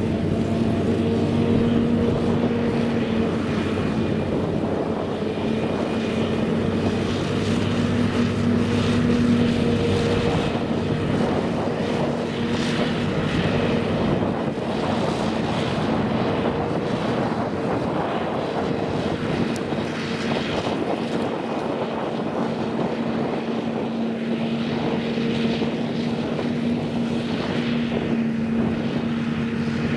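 Claas Jaguar 850 forage harvester running steadily while chopping corn for silage, a continuous machine drone with a steady hum that swells and fades slightly, as the chopped crop is blown from the spout into a truck alongside.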